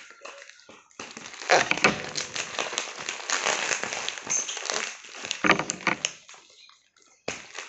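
Plastic parcel wrapping and packing tape crinkling and crackling as hands grip and turn the package. It starts about a second in, goes on for several seconds, pauses briefly, and picks up again near the end.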